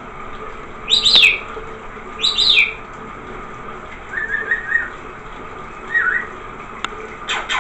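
Rainbow lorikeet giving two short, sharp screeches about a second and two and a half seconds in, then a few softer chirps, over the steady hiss of shower water spraying.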